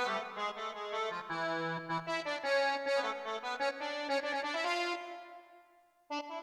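Roland XP-10 synthesizer playing one of its factory preset voices: a run of keyboard notes and chords that die away about five and a half seconds in, then a new preset sound entering just before the end.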